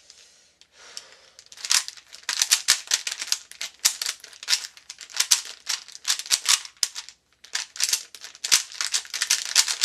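A Rubik's brand 3x3 cube being turned fast during a speedsolve: rapid bursts of plastic clicking and rattling as the layers turn, broken by short pauses.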